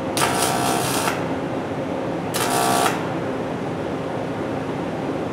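Two short bursts of a pulsed MIG welding arc on thin aluminum, the first about a second long and the second about half a second, each a buzzing crackle, from a Lincoln Power MIG 350MP push-pull gun in pulse-on-pulse mode. A steady low hum runs beneath them.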